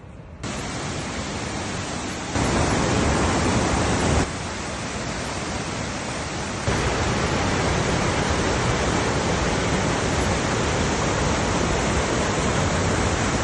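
A steady, even rushing noise that steps abruptly louder or quieter several times: up about half a second in, up again near two and a half seconds, down near four seconds and up again near seven seconds.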